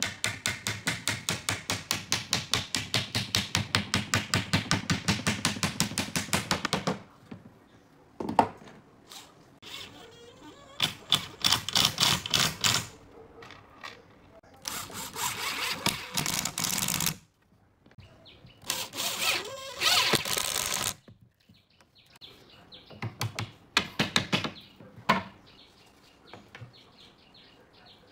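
Cordless drill-driver driving screws into pine boards in several bursts. The first burst is a long, rapid rhythmic clatter lasting about seven seconds, and shorter bursts of a second or two follow, with a single knock between them.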